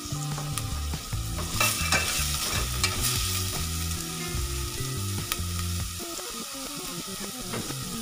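Diced carrots, green peppers and spring onion sizzling in hot oil in a stainless steel pot, with a metal turner stirring and scraping against the pot in sharp clicks. A low hum that steps in pitch runs underneath and glides downward near the end.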